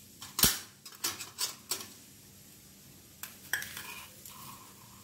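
Stainless-steel spoon and spice tins clinking and knocking: a sharp knock about half a second in, then several lighter clinks, and a faint short ring near the end.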